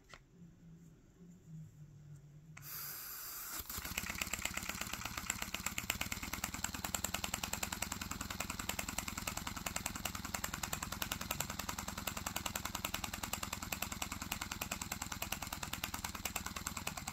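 Paper single-cylinder air engine running on air fed in through a tube, its paper exhaust puffing in a fast, even rhythm. A hiss of air comes in about two and a half seconds in, the rapid puffing starts about a second later and cuts off abruptly at the end.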